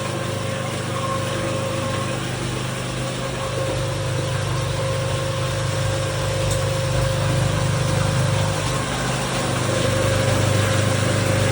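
A small engine running steadily at an even pitch over a constant hiss.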